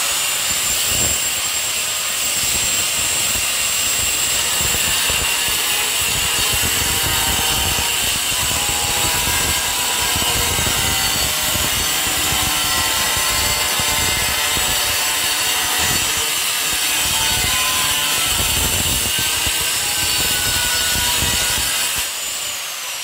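Angle grinder with a cutting disc cutting through a ceramic wall tile: a steady high whine with gritty grinding noise as it works along the marked line. It spins up at the start, and is switched off about a second before the end, its whine gliding down as it winds down.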